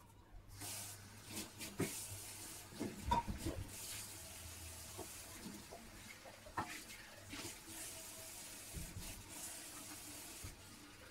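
Kitchen tap running into a sink, turned on about half a second in, with scattered clinks and knocks as things are rinsed and handled under the water.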